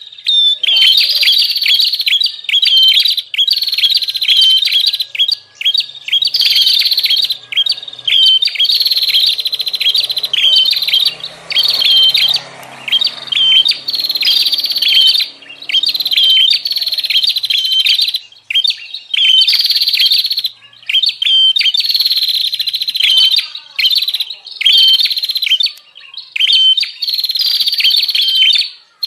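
Prinia (prenjak) calling loudly: a lure recording of rapid, harsh chattering calls in bursts of about a second, repeated with short gaps.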